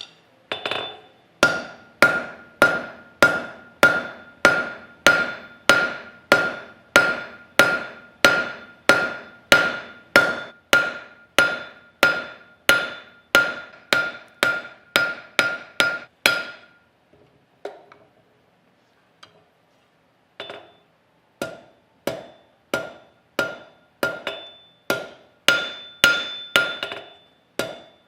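Hand hammer striking steel on an anvil in a steady forging rhythm, about one and a half blows a second, each blow ringing with a clear metallic tone. The blows stop for a few seconds after about sixteen seconds, with only a couple of light taps, then start again.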